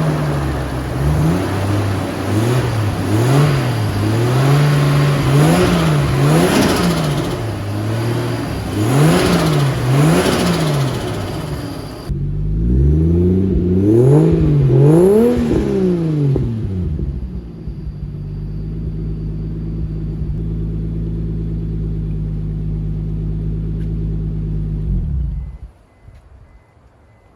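Turbocharged Nissan RB25 straight-six, freshly rebuilt with a new head gasket and head studs, revved repeatedly in quick blips. It then settles to a steady idle and is switched off about 25 seconds in.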